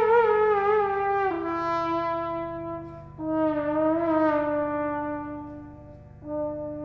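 Trombone playing a slow melody: a wavering note that slides downward, then lower held notes, one swelling and dying away about six seconds in before a new note enters.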